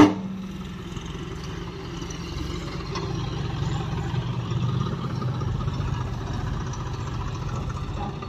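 A sharp metal bang as the truck trolley's tailgate drops open, then a loader tractor's diesel engine running steadily, a little louder for a few seconds in the middle as the loader works.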